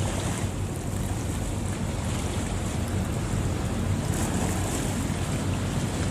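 A fishing boat's engine running with a steady low drone, over a continuous rush of water and wind.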